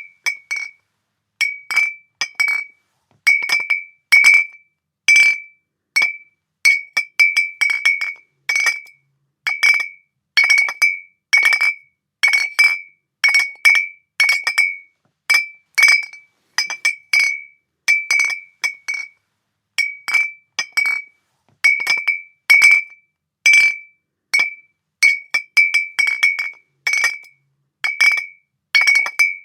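Glass bottles clinking together over and over at an irregular pace, singly and in quick groups of two or three. Each clink is a short bright ring at the same high pitch.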